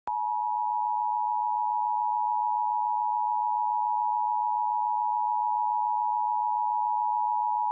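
Emergency Alert System attention signal from a DASDEC-II encoder: a steady, loud two-tone sound of 853 Hz and 960 Hz played together, the alert tone that follows the SAME data header bursts and comes before the spoken test message.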